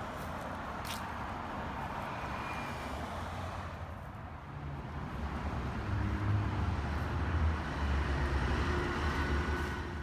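Steady hiss of road traffic, then from about halfway a wheel loader's diesel engine running with a low rumble that grows louder about six seconds in.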